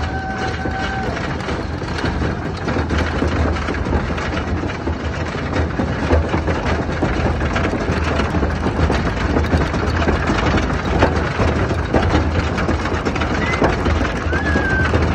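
A 1921 wooden roller coaster's train being hauled up the lift hill by its chain, making a steady low rumble with rapid clacking throughout, typical of the anti-rollback ratchet on a lift.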